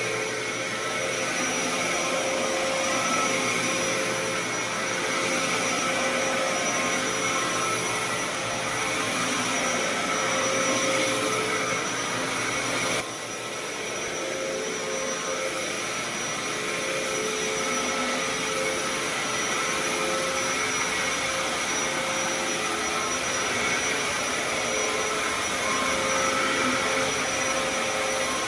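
Dyson DC07 upright vacuum cleaner running steadily on carpet, its motor whine carrying a few steady tones with the brush bar spinning. It briefly goes quieter about halfway through.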